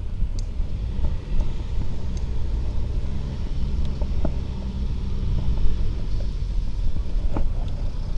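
Wind buffeting the microphone of a helmet camera, and tyre rumble as a bicycle rolls over brick block paving, with a few light clicks and rattles.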